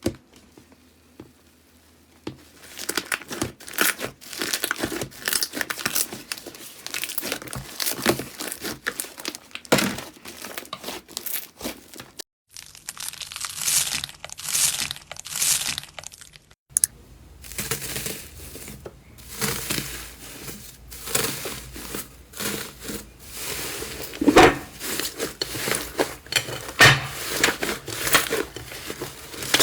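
Slime being squeezed and pressed by hand, giving dense crackling and popping. The texture changes abruptly twice, with the sharpest pops near the end.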